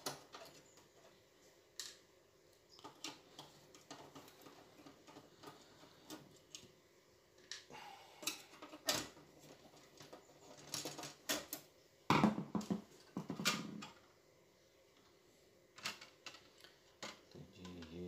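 Hand screwdriver clicking and scraping against screws and the stereo's sheet-metal chassis as the power-supply circuit board is unscrewed, with scattered small taps and a louder metallic clatter about two-thirds of the way through.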